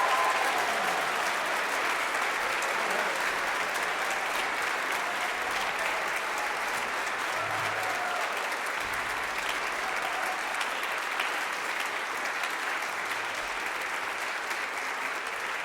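Audience applauding steadily, the clapping slowly thinning out, with a few voices under it.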